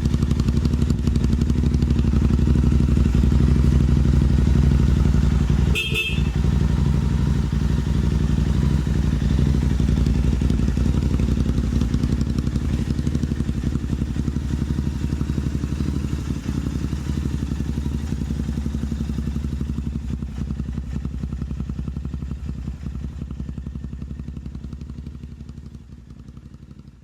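Motorcycle engine running steadily, with a short high beep about six seconds in; the engine sound fades away over the last several seconds.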